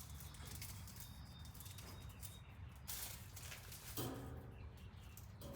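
Irregular small clicks and taps of a screwdriver fastening the screw of an electrical outlet's cover plate, with a sharper tap about three seconds in, over a steady low hum.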